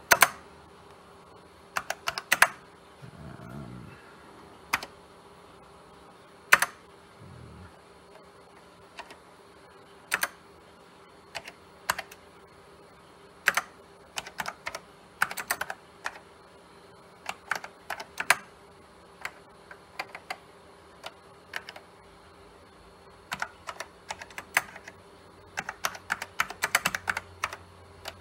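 Typing on the Sanyo MBC-555's keyboard, which has linear key switches. Sharp key clicks come one at a time with uneven gaps, then a quicker flurry near the end, over a faint steady hum.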